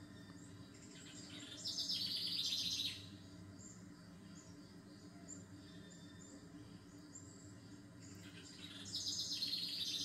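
Birdsong: scattered short high chirps, with a louder rapid buzzing trill about a second and a half long heard twice, near two seconds in and again near the end.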